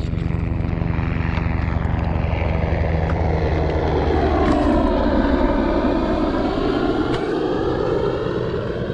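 Helicopters flying overhead, the engine and rotor noise swelling to its loudest about five seconds in and then easing off as they pass.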